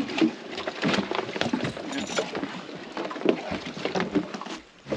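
Scuba gear being handled in an inflatable dinghy: irregular knocks, clunks and rustles as buoyancy jackets, regulators and fins are moved about.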